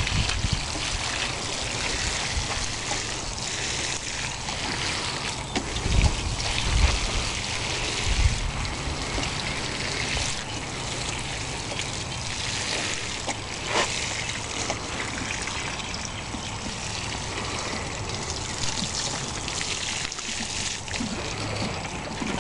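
Steady trickle of water poured from a plastic watering can, used without its sprinkler head, onto garden soil around beet plants to saturate it. A few low thuds come about six to eight seconds in.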